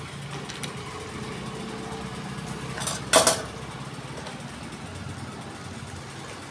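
Capacitor-run ceiling fan motor, switched on without its blades, running with a steady low hum as its body spins. A single short, loud clatter about three seconds in.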